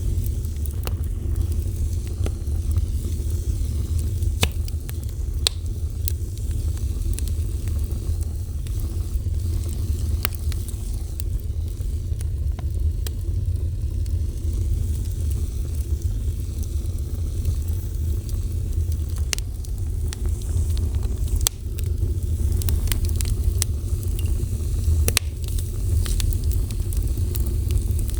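Wood fire burning steadily: a constant low rumble of the flames with scattered sharp crackles and pops.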